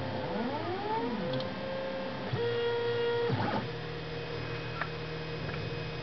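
Stepper motors of a 3D printer driven by LinuxCNC, whining as the axes move. Over the first two seconds the pitches sweep up and down along arcs, then hold steady on a straight move. About three and a half seconds in, a brief rough break interrupts the tone, after which it settles at a lower pitch.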